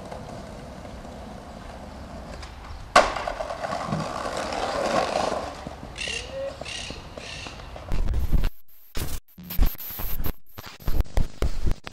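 Outdoor camera sound with a single sharp knock about three seconds in and four short high chirps a few seconds later, then from about eight seconds choppy bursts of video-glitch static cutting in and out abruptly.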